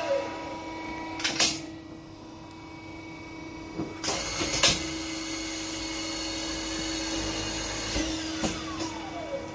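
Rotary tube flaring machine working on copper tube: a steady motor hum, with the spinning head's whine falling in pitch as it winds down near the start and again near the end, and short sharp bursts of noise about a second and a half in and again around four to five seconds in.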